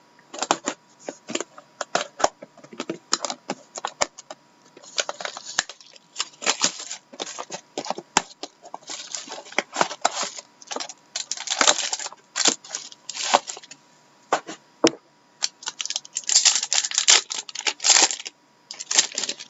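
A trading-card box being opened and its cards handled: irregular clicks and taps with short stretches of rustling and tearing packaging.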